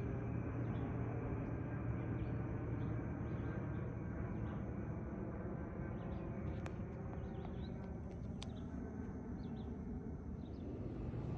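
Steady, low distant rumble of a high-flying twin-engine jet airliner passing overhead, with short faint bird chirps scattered through and a couple of faint clicks just past the middle.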